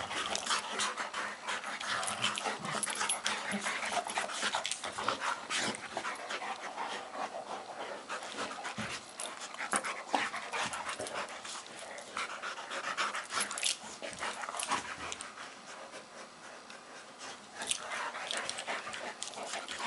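Two Labrador Retrievers play-fighting, their wrestling on the carpet full of quick scuffles, snaps and clicks. The sound eases off briefly near the three-quarter mark before picking up again.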